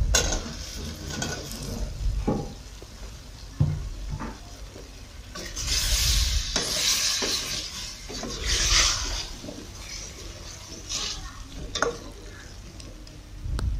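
Potato chunks tipped into a steel pot of chicken sautéing in oil, then stirred with a spatula: sizzling under scraping and stirring, with a few sharp knocks of the utensil against the pot.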